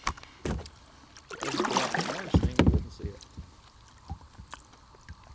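Kayak paddle strokes: the blade dipping and splashing in the river, with a few knocks. The loudest splashing and two heavy thumps come about two to three seconds in.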